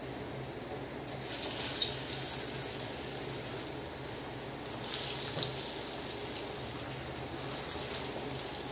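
Spoonfuls of gram-flour and corn batter frying in hot oil, sizzling and bubbling, the sign that the oil is hot enough to fry. The sizzle starts about a second in and grows louder again near five seconds as more batter goes in.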